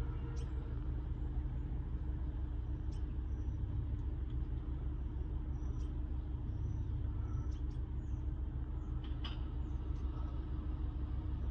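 A car idling, heard from inside the cabin: a steady low rumble with a faint hum, and a few faint short high chirps scattered through it.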